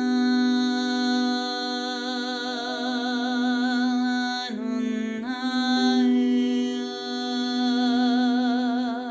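A voice sings long wordless notes with vibrato over the steady drone of a crystal singing bowl. It breaks off for a moment about four and a half seconds in, then goes on.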